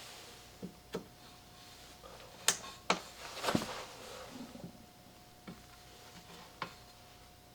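A series of light clicks and knocks from objects being handled on a hard surface, the two sharpest about two and a half and three seconds in, over a faint steady hum.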